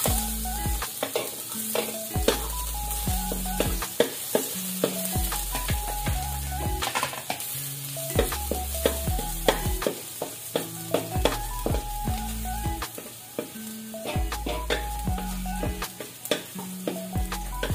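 Garlic sizzling in hot cooking oil in a pan, stirred, with many short clicks and scrapes of the utensil against the pan. Background music with a repeating bass line plays over it.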